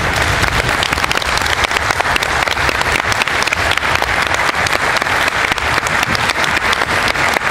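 Audience applauding: many hands clapping in a dense, even patter that holds at a steady level.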